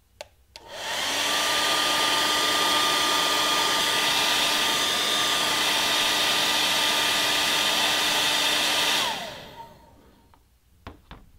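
Hand-held hair dryer switched on with a click, its whine rising as the motor spins up, then blowing steadily for about eight seconds. It is switched off and winds down with a falling whine.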